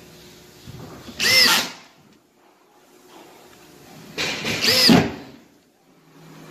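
Cordless drill driving screws through a wooden back panel into a furniture rail. There are two short runs, about a second in and again around four to five seconds, and in each the motor's whine rises and then falls in pitch.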